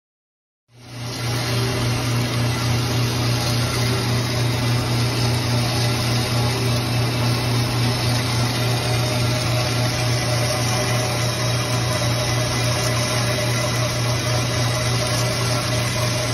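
2018 KASTOmni Cut E 2.6 semi-automatic bandsaw running with a steady, even machine hum and a low drone, starting suddenly just under a second in.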